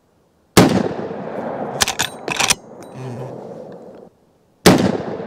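Two shots from a Henry lever-action rifle in .45-70 Government, about four seconds apart, each a sharp crack with a trailing echo. Between them come a few quick metallic clicks of the lever being worked to eject the spent case and chamber the next round.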